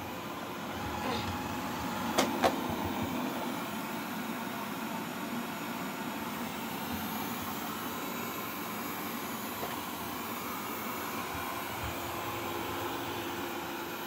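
Wyze robot vacuum running: a steady whir from its suction fan and brushes. Two sharp knocks come close together about two seconds in.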